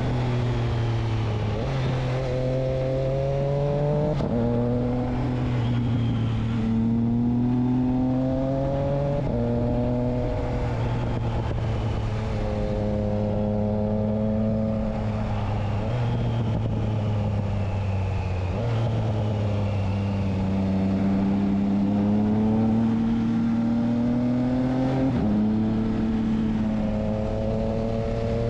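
Triumph Trident 660's inline three-cylinder engine running through a Spark aftermarket exhaust with its dB killer fitted, ridden through the gears. The note rises and falls in pitch and steps abruptly several times, as at gear changes.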